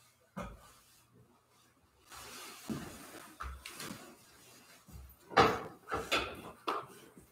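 Scattered knocks, clunks and rustling as objects are handled and set down on an altar, with a soft click near the start and a cluster of louder clunks in the second half.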